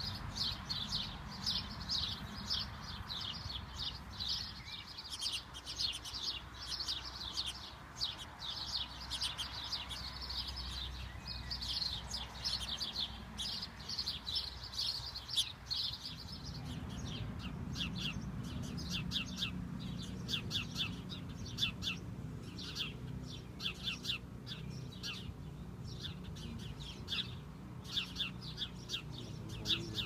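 House sparrows chirping: a fast, continuous run of short chirps that thins to more spaced chirps about halfway through, over a low steady background rumble.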